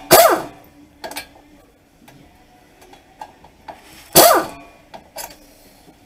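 A socket wrench working a brake caliper bolt loose: two loud short bursts of noise with a falling squeal in each, one at the start and one about four seconds in, with a few light clicks between.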